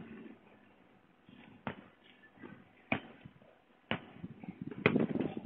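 A few separate sharp clicks and knocks about a second apart, turning busier and louder near the end, heard through a security camera's thin-sounding microphone.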